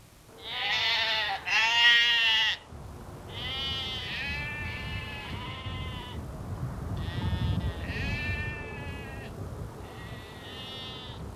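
Sheep bleating, a string of about seven wavering calls, the two loudest in the first three seconds, over a low rumble.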